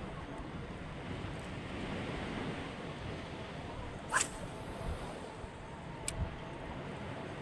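Steady wind and water noise at the sea's edge, with a short zip-like rasp about four seconds in and a fainter click about two seconds later.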